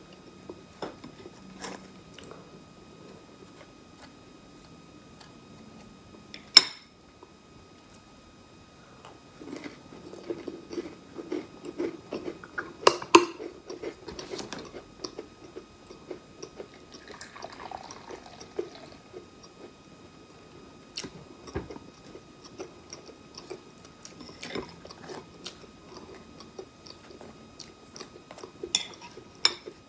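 Close-miked eating and food-handling sounds: scattered sharp clicks and taps, the loudest about six seconds in, and a run of soft chewing noises through the middle. Near the end, a table knife scrapes guava jam across a cracker.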